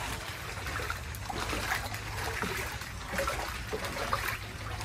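Shallow floodwater, 3 to 4 inches deep on a garage floor, sloshing and trickling in scattered small splashes over a low steady hum.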